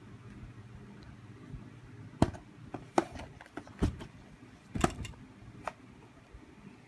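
Handling of a boxed Bluetooth speaker and its packaging: about five separate knocks and clicks, spaced roughly a second apart, over a faint low hum.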